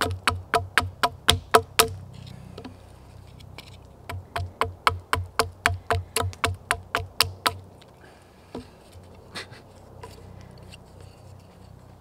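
Hatchet chopping down a stick of green wood braced against a log, roughing out a flat wooden spatula: quick strikes at about four a second in two runs, the second from about four to seven and a half seconds in, then a few scattered taps.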